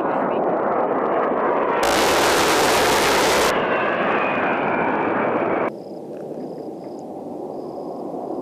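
A-10 Thunderbolt II flying past, its twin General Electric TF34 turbofan engines running. About two seconds in, a much louder burst cuts in and stops abruptly after under two seconds. After it the engine sound falls in pitch, and near the end it drops sharply to a quieter level.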